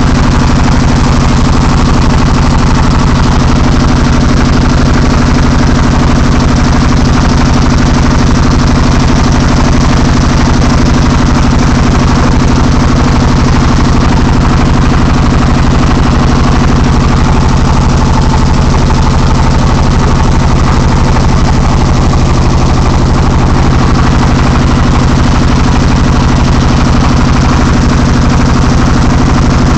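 A wooden river boat's engine running steadily under way, loud and close, with a fast, even firing pulse.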